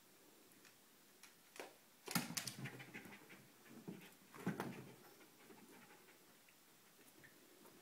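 Small dog panting in short quick spells, about two seconds in and again about four and a half seconds in, as she chases a laser dot.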